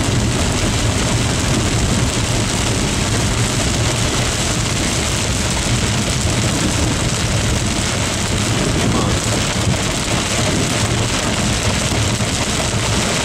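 Steady rain and wind noise with a low drone of a vehicle's engine and road noise underneath, running without a break.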